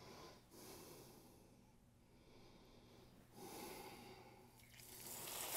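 Near silence with a few faint breaths. About five seconds in, overheated oil in a skillet starts to sizzle as a breaded piece of meat goes into it, and the frying grows steadily louder.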